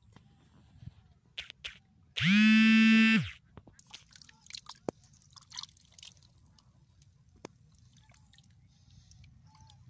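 A hand squelching and sloshing in a mud hole, with small wet clicks and drips. About two seconds in comes a loud, steady-pitched honk lasting about a second.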